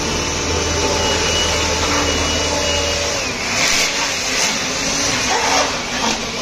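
Electric air blower running steadily, blowing dust out of the inside of a speaker cabinet. The pitch of its motor whine dips about three seconds in, and there are a few short gusty flares after that.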